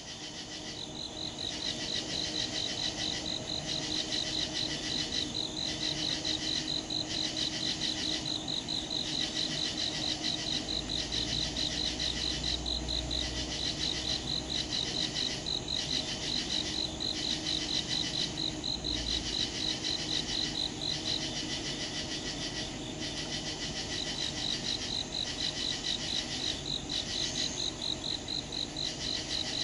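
Crickets and other insects calling in a steady, rapid high trill, with a second insect call pulsing in regularly about every one and a half seconds. A faint low rumble comes in briefly near the middle.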